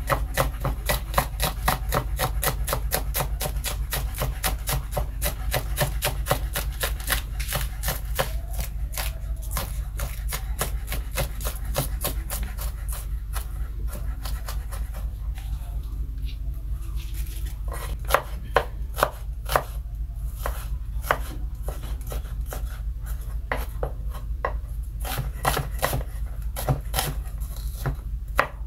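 Knife chopping scallion, onion and other seasonings on a cutting board: a fast, even run of strikes, about four or five a second, that thins about halfway through into slower, separate strokes. A steady low hum runs underneath.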